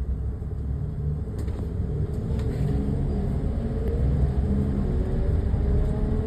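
Road noise heard from inside a moving car: a steady low rumble of tyres and engine. Near the end a faint whine rises in pitch, as the engine or tyres pick up speed.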